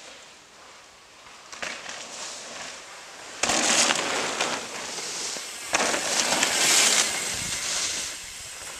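Mountain bike tyres crunching and skidding over dry fallen leaves and dirt as riders pass close by, in two loud crackling spells: one starting suddenly about three and a half seconds in, the other about six seconds in.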